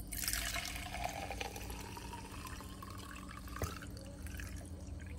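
Leftover gasoline pouring from the bottom section of an outboard's vapor separator tank into a glass mason jar, a steady trickle and splash whose pitch rises over the first few seconds as the jar fills. A small tap about three and a half seconds in.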